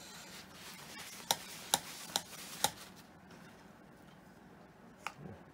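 Sharp clicks of small metal parts and tools being handled and set down on a workbench: four clicks about half a second apart, then one more near the end.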